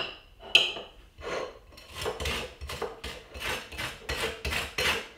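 A table knife scraping butter across crisp toast in short rasping strokes, roughly two a second, with a sharp clink of the knife against the glass butter dish about half a second in.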